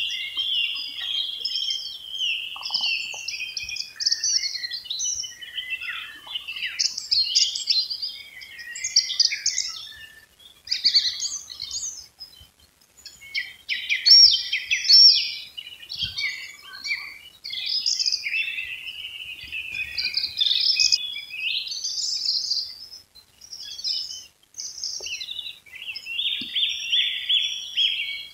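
Songbirds singing in the dawn chorus: a near-continuous run of varied high chirps, whistled phrases and trills from birds singing over one another.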